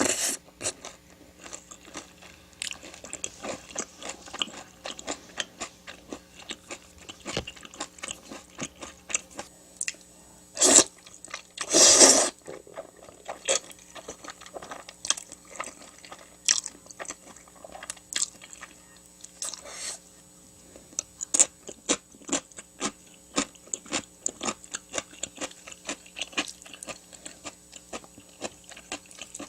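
A person eating up close to the microphone: a steady run of crunchy bites and chewing of crispy fried food, with two louder bursts about 11 and 12 seconds in.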